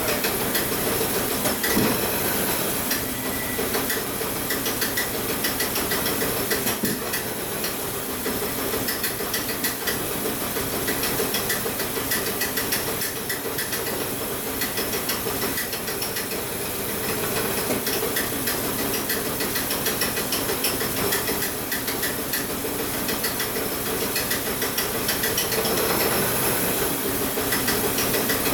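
Volvo 850 T5's turbocharged 2.3-litre inline-five engine idling steadily, with a dense fine ticking under an even hiss.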